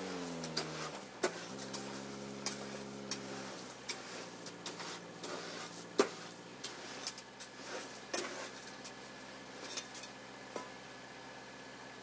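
Diesel engine of a crane truck slowing down, then running steadily at two lower speeds before it fades out about halfway through. Scattered sharp clinks and knocks run throughout.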